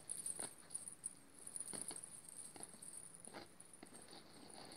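Faint, scattered soft taps and rustles, about half a dozen, over a steady high-pitched whine.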